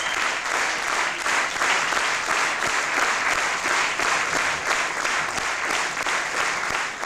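Audience applauding, the clapping falling into an even beat of about three claps a second.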